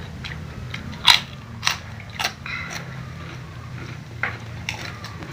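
Eating sounds: about six short, sharp crunches and clicks spread over a few seconds, the loudest about a second in, over a steady low hum.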